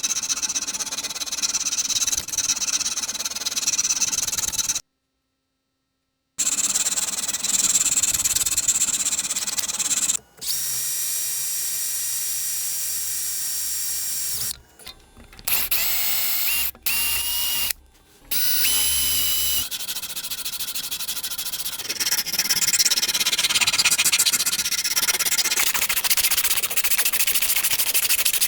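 Power tools at work in short edited clips: a motor running, with a steady high whine for about four seconds mid-way. There are several abrupt cuts, one of them dead silence for about a second and a half, and near the end a rapid rasping.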